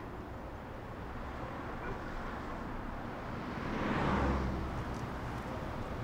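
Outdoor street ambience with a low steady rumble; a vehicle passes, its sound swelling and fading about four seconds in.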